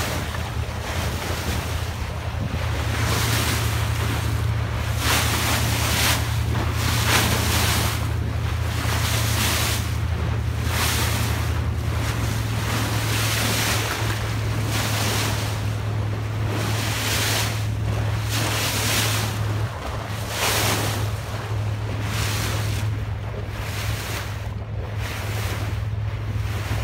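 Wind buffeting the microphone and water rushing and splashing along the hull of a boat under way, over the steady low drone of the boat's engine.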